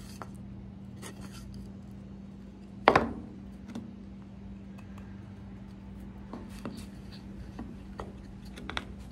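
Wooden discs being handled, turned over and stacked on a bandsaw table: light knocks and rubbing, with one sharp knock about three seconds in.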